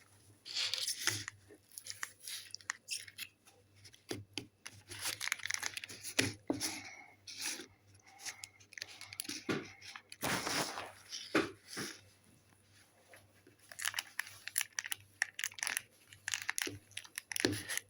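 Sticky yellow slime being pulled and prised out of its tub by hand, making irregular crackling, popping and squelching sounds as it tears away from the container.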